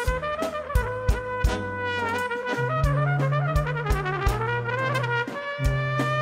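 Trumpet playing a fast, ornamented melody that slides between notes, over a steady drum beat of about three strikes a second and a held bass line.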